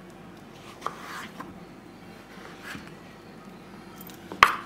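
Knife cutting papaya on a cutting board: quiet cutting sounds with a couple of light taps early on, then one sharp knock of the knife on the board near the end.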